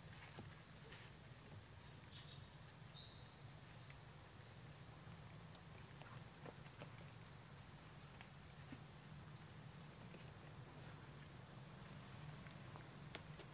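Faint outdoor ambience: a steady high insect drone, with a short high chirp repeating about once every two-thirds of a second, under a low steady hum and a few faint clicks.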